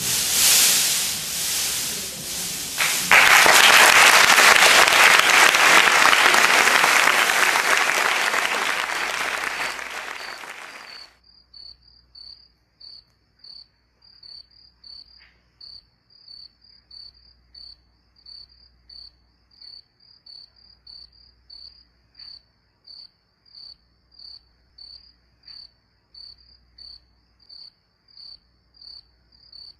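Audience applauding, swelling loudly about three seconds in and cut off abruptly about eleven seconds in. Then a cricket chirping steadily, about two high chirps a second.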